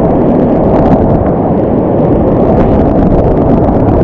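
Whitewater rapids rushing close around a kayak, a loud, steady churning of water with scattered splashes, with wind noise on the microphone.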